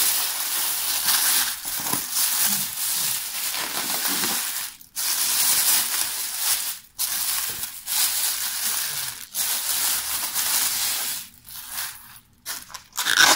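Thin plastic carry-out bag crinkling and rustling loudly, close up, as hands pull it open and work a styrofoam takeout container out of it, with a few brief pauses. The rustling thins out toward the end, and there is one sharp crackle just before the end.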